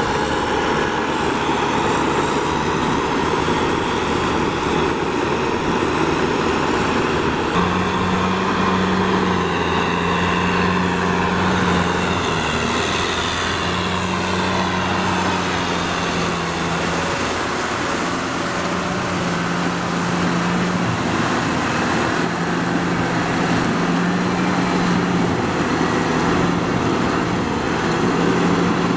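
Kubota M6040SU tractor's four-cylinder diesel engine running steadily under load while the tractor pushes and tills deep wet mud. From about eight seconds in, a low steady hum comes and goes every few seconds over the engine noise.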